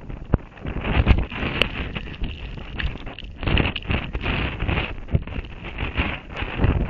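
Hurricane wind gusting over the camera's microphone, coming in surges every second or two, with scattered clicks and knocks against the camera.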